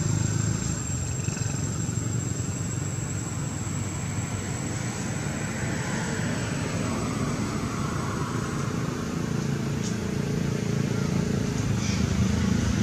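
Steady low rumble of motor-vehicle engine noise, with a thin, steady high whine over it.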